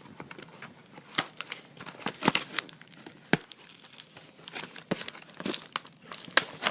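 Crinkling plastic packaging handled by hand, in irregular sharp crackles, as stickers are worked out of their plastic bag.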